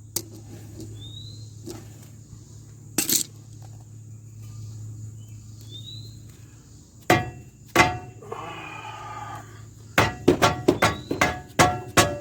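Hammer blows on steel around a seized front hub bearing assembly of a 2008 GMC Envoy, trying to knock it loose from the knuckle. A single knock comes about 3 s in, two more a little after 7 s, then a quick run of ringing metallic strikes near the end.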